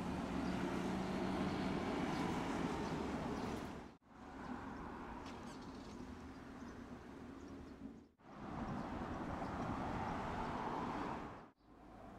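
Road traffic, with a city bus's engine passing through the first four seconds. The sound drops out abruptly three times, about four, eight and eleven and a half seconds in, where clips are joined, with quieter street traffic between.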